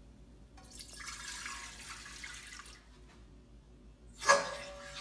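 Water poured from a glass measuring cup into a large empty stainless steel stockpot, splashing onto the metal for about two seconds. Near the end comes a louder sudden splash or knock, the loudest sound here, and the steel pot rings briefly after it.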